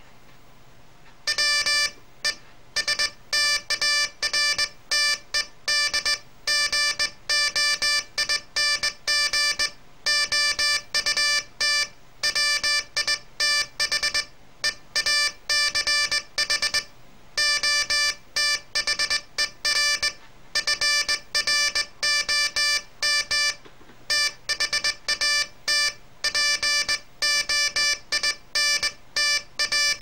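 Morse code sent by hand on a straight key: a buzzy, mid-pitched oscillator tone from a small speaker, switched on and off in dots and dashes. The sending starts about a second in and runs at an uneven hand-keyed rhythm.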